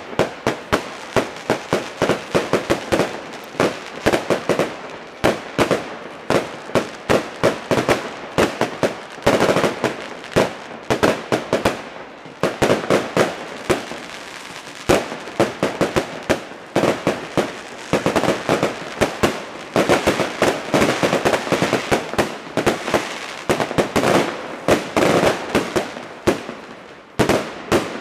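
Fireworks display: a continuous barrage of aerial shells bursting, several bangs a second with no pause.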